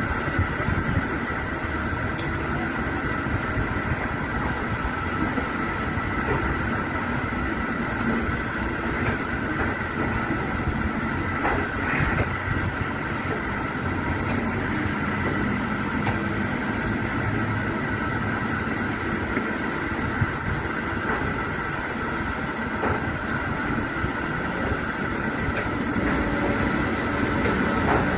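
An electric multiple unit creeping through a drive-through carriage wash, with a steady mechanical hum and a steady high whine from the train and wash plant, over a low rumble of wind on the microphone.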